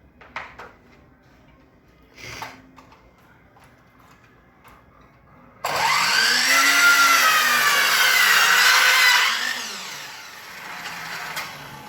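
An electric power saw cutting through a wooden baseboard: it starts abruptly about halfway in, runs loudly for about four seconds with its pitch wavering under load, then winds down. A couple of light knocks come before it.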